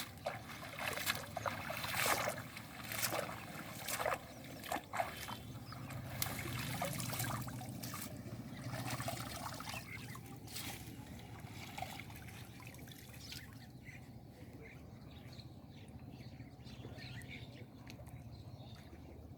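Shallow floodwater splashing and trickling: short splashes about once a second for the first ten seconds or so, then fainter trickling.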